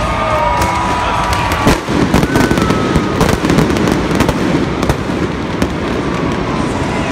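Arena pyrotechnics going off: a quick run of sharp cracks and pops that starts about two seconds in and keeps crackling.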